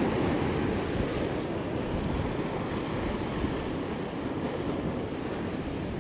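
Steady rush of ocean surf washing against a rocky shoreline, with wind buffeting the microphone.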